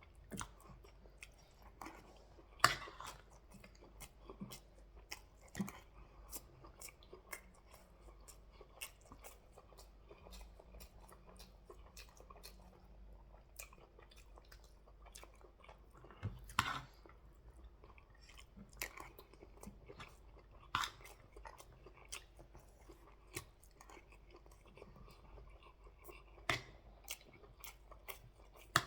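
Close-up eating sounds from a mouthful of jollof rice and turkey: chewing and biting, with many small wet clicks and a few louder smacks scattered through.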